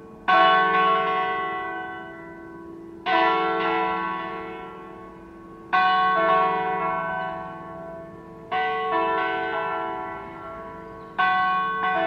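Church tower bells ringing with several pitches sounding together. A fresh clash of strikes comes about every two and a half to three seconds, five times, each quickly followed by another strike and then ringing on and slowly fading.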